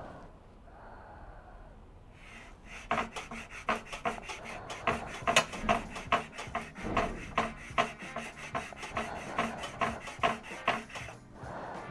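Hand file or rasp worked back and forth over the knife workpiece in a steady run of scraping strokes, about three a second, starting a couple of seconds in and stopping shortly before the end.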